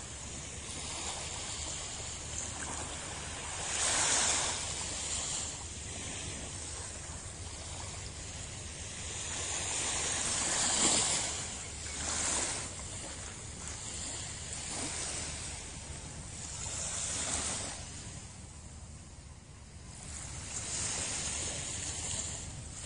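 Small waves lapping and washing up a sandy beach on a calm sea, a steady hiss of surf that swells louder every few seconds as each wave comes in.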